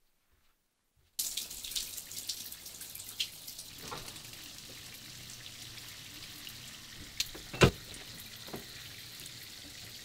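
Steady rain falling, a dense hiss of drops that comes in suddenly about a second in. A single loud thump about two-thirds of the way through.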